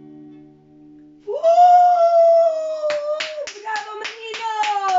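The last strummed chord of an acoustic guitar rings out and fades, then a loud, long cheering shout breaks in. About three seconds in, hand clapping starts at about three claps a second, and a second voice joins the cheering.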